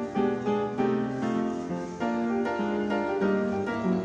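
Background instrumental piano music: a melody of notes changing about twice a second over held lower notes.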